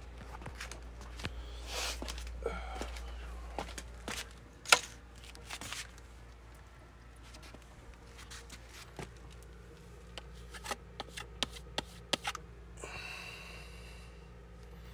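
Scattered handling clicks and knocks in a small room, the loudest a sharp knock about five seconds in, as a sledgehammer is stood head-down on a metal platform scale. A brief rustling hiss comes near the end.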